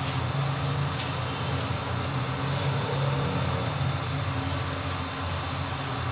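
Steady machine hum, with a few light clicks of a metal spoon against a plastic bowl and foil while marinated chicken is spooned into the foil.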